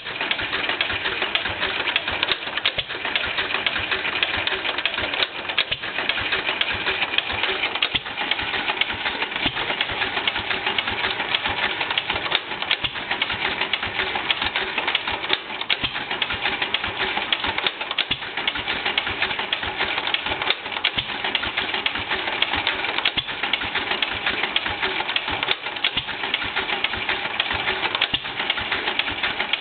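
1954 Fairbanks-Morse ZC52 single-cylinder, throttle-governed oil field engine running very slowly on propane, idling just fast enough to circulate its cooling water. It makes a steady, even ticking and clatter from its moving parts.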